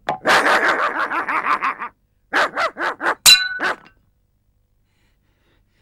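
Cartoon dog barking: a fast run of barks, then a few more separate barks after a short gap. A sharp ringing hit among the later barks is the loudest moment.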